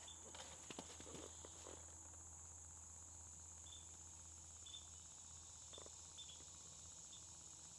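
Near silence with faint outdoor ambience: a steady high-pitched insect drone, likely crickets, with a few soft clicks in the first two seconds.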